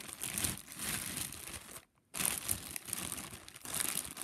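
Plastic packaging crinkling and rustling as it is handled, with a short break about halfway through.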